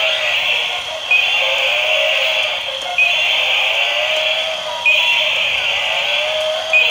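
Electronic sound effects from battery-operated toy animals: a tinny, synthetic clip that starts abruptly and repeats about every two seconds.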